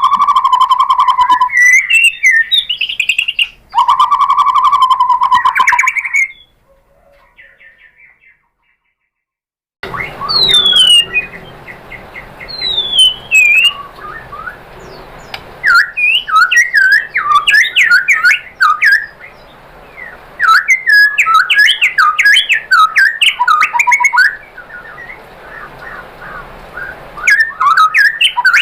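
White-rumped shama (murai batu) singing. Two fast, rattling phrases come in the first six seconds, then a gap of about three seconds, then a long run of varied whistled notes and sliding glides over a steady hiss.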